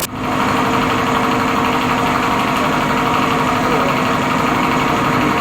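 Motorcycle engine idling steadily, just refilled with fresh engine oil.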